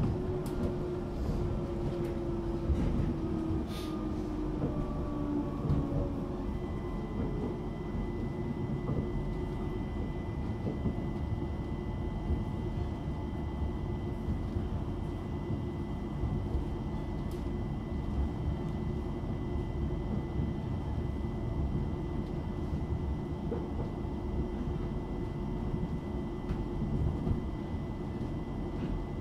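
Bombardier Class 378 Electrostar electric train running, heard from inside the carriage: a steady low rumble from wheels and track, with the traction motor whine falling in pitch over the first few seconds as the train slows. From about six seconds in, a thin steady high tone holds over the rumble.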